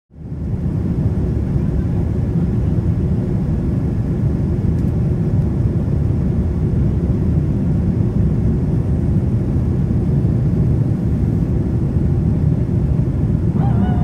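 Steady low rumble of engine and airflow noise inside the cabin of a Boeing 787-9 airliner flying its approach. In the last half second, a sustained musical tone begins over it.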